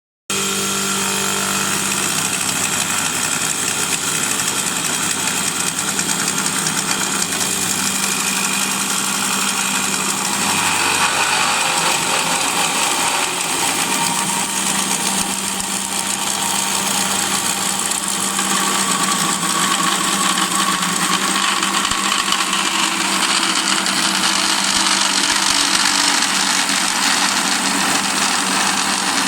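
Automatic wood-turning lathe running steadily while it turns a wooden rake handle: a constant motor hum under the even hiss of the cutter shaving the wood.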